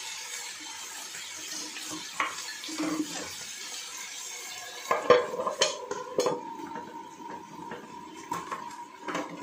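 Tuna steaks sizzling on an electric grill pan as they are brushed. About five seconds in comes a handful of sharp clinks and knocks as a glass lid is set on the pan. After that a faint steady whine runs under the sizzle, with a few more light clinks.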